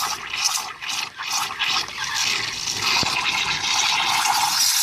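Krups espresso machine's steam wand hissing into a jug of milk, sputtering unevenly for the first couple of seconds, then settling into a steady, fairly loud hiss as the milk froths.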